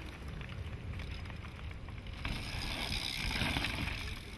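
Wind buffeting the microphone as a steady low rumble, with a louder hiss that swells about halfway through.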